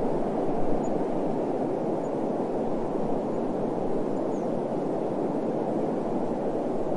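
Steady, low, muffled wind noise, an even rush without distinct gusts, with a few faint high chirps now and then.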